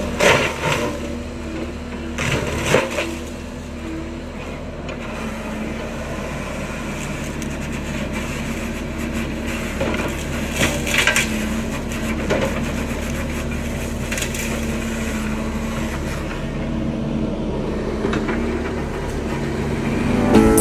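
A heavy machine's diesel engine runs steadily under load while wood cracks and splinters at intervals, loudest near the start and again around ten seconds in, as brush is chewed up by a forestry mulcher head.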